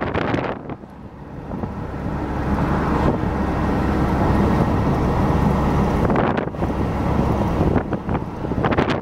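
Car on the move: a steady low rumble of road and engine noise with wind buffeting the microphone, building up over the first few seconds.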